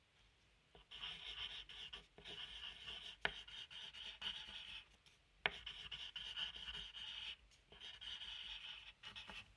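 Faint, scratchy rubbing strokes on a library object, played as a percussion part in a composed piece: several strokes of a second or two each with short pauses, and two sharp clicks about a third and just over half-way through.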